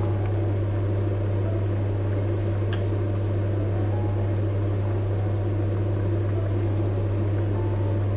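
A steady low hum, with a few faint pops from a pot of lentil soup simmering at a boil.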